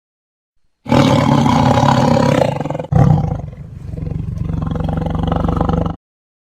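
A big cat roaring: two long, loud roars, the first about two seconds long, the second cutting in at once and trailing into a low pulsing rumble.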